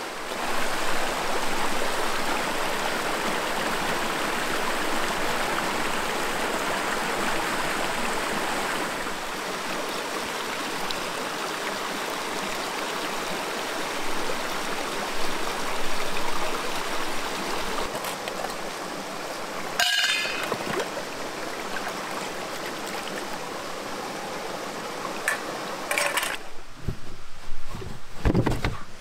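Shallow rocky brook running over stones: a steady rush of water, louder for the first several seconds. A sharp click about twenty seconds in, and a few knocks and bumps near the end.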